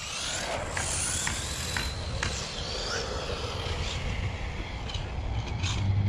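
Radio-controlled car driving on asphalt: a thin motor whine over a steady hiss of tyre and outdoor noise, with scattered sharp clicks.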